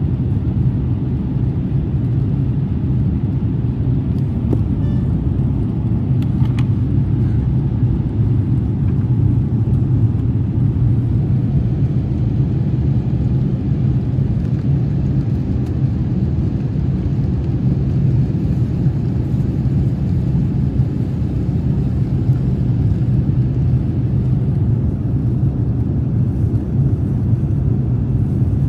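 Steady low rumble inside a jet airliner's cabin in flight, engine and airflow noise heard from a window seat as the plane climbs out after takeoff.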